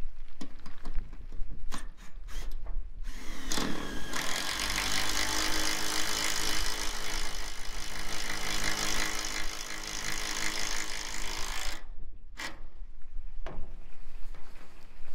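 Cordless drill driving a roofing screw down through a corrugated steel roof panel. The motor runs steadily for about eight seconds, then stops abruptly.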